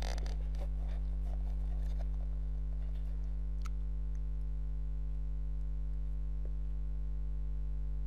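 Steady low electrical hum, a mains hum with its overtones picked up by the recording's microphone, unchanging throughout; a faint click about three and a half seconds in.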